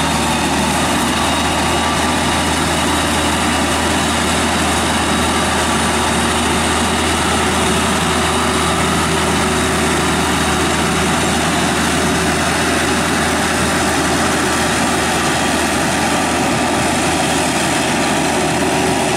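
Kubota diesel engine of a homemade crawler rotary tiller running steadily under load as the machine tills.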